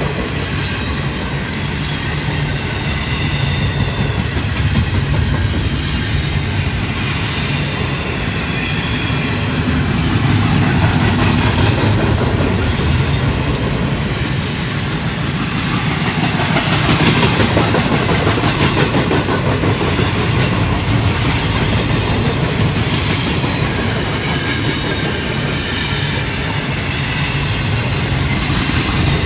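Double-stack intermodal freight train rolling past at close range: a steady rumble and clatter of steel wheels on rail as the container well cars go by. A thin high ringing runs through the first ten seconds or so.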